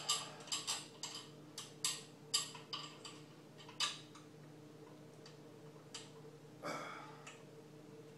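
Irregular sharp metallic clicks and clinks of small parts being handled while a part that came off a 110cc pocket bike is refitted, with a brief scrape near the end, over a faint steady hum.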